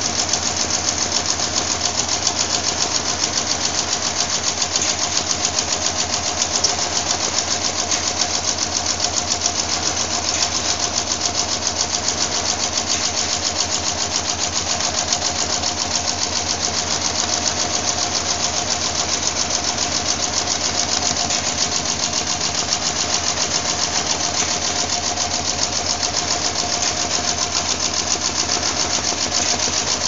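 Computerized pattern sewing machine stitching thick webbing strap, its needle running at a fast, steady, even rate.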